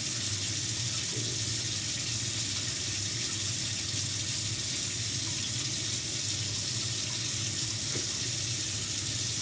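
Kitchen tap running steadily into the sink, as when rinsing vegetables, with a low steady hum underneath.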